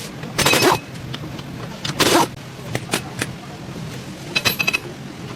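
Metal tools at work in a workshop: two short harsh bursts, about half a second and two seconds in, then a quick run of ringing metallic clicks and clinks near the end.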